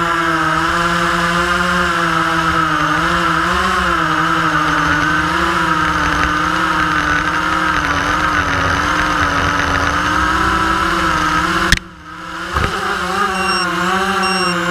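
Quanum Trifecta tricopter's brushless motors and propellers whining in flight, the pitch wavering up and down with the throttle. About 12 s in the sound cuts off with a click and returns a moment later, and near the end two short high beeps sound about a second apart.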